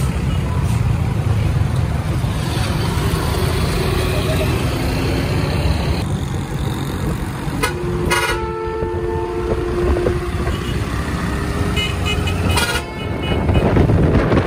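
Street traffic with a heavy bus engine running and passing close. About eight seconds in, a vehicle horn sounds for roughly two seconds in a few stepped notes, like a musical pressure horn.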